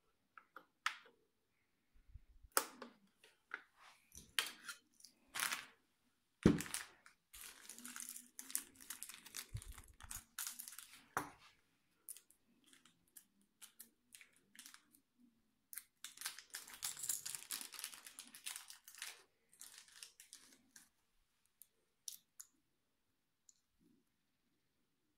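Small plastic packaging and parts handled by hand: scattered clicks and taps, with two longer stretches of crinkling rustle.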